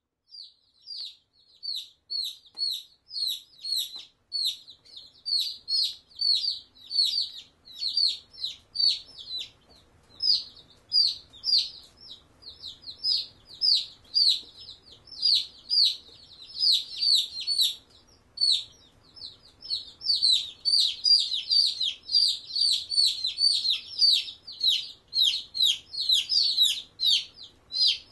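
A group of Black Australorp chicks peeping continuously: short, high calls that each fall in pitch, several a second, growing busier and louder about two-thirds of the way through.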